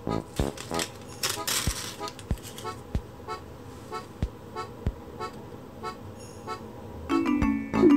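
Light background music with a steady beat. Near the end a short, loud honking toot sounds.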